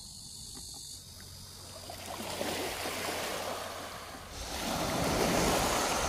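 Small waves washing up onto a pebble beach, a rushing wash that swells and is loudest in the last part.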